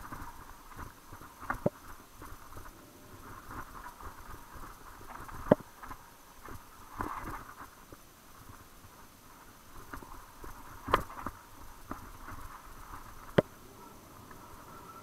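A mountain bike rolling fast over a dirt singletrack, with a steady rattling, rolling noise from the tyres and the bike. Several sharp knocks come as it hits bumps, the loudest about five and a half seconds in, near eleven seconds, and near the end.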